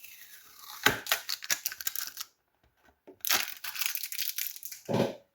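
Packaging being handled as the box is unpacked: two spells of crinkling, rustling and light clicking, with a short pause between.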